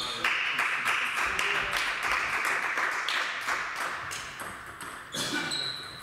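Table tennis ball bouncing with light pings between points, with a clear ringing ping about five seconds in. Under it runs a rushing noise that fades slowly.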